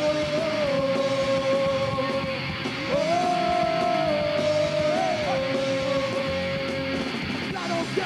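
Punk rock band playing live, with electric guitar and a full band texture. Two long held notes stand out, the second beginning about three seconds in.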